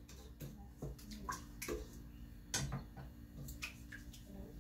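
Faint, irregular clicks and scrapes of a spatula against the stainless steel bowl of a stand mixer as the bowl sides are scraped down, with the mixer switched off.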